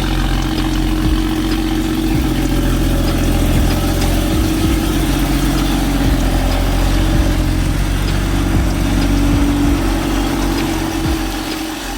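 BMW X3 M40i's B58 turbocharged straight-six idling steadily through a freshly fitted catless downpipe.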